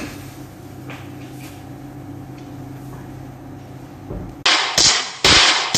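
Tap water running into a stainless steel pot of fish in a sink: a low steady hum at first, then near the end loud splashing rush of water in several abrupt bursts.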